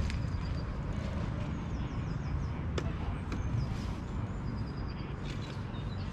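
Outdoor lakeside ambience: a steady low rumble, with a small songbird singing short repeated chirps twice, and a couple of faint clicks near the middle as the angler handles his tackle.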